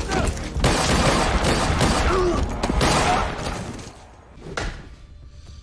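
Loud, dense crashing and impact noise from a television fight scene, lasting about three seconds before dying away. A single sharp hit follows about four and a half seconds in.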